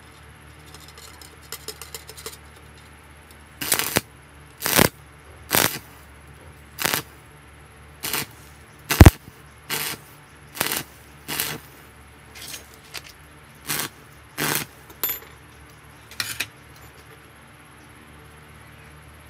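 Arc (stick) welder striking and breaking a short arc over and over on scrap iron: about fifteen brief bursts of arc crackle, each under a second apart, from about four seconds in until a few seconds before the end, with one sharp crack about nine seconds in.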